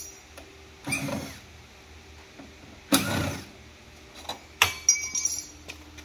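Cordless drill driver spinning Phillips screws out of a sheet-metal air-conditioner evaporator box cover in three short bursts, with a ringing metallic clink near the end.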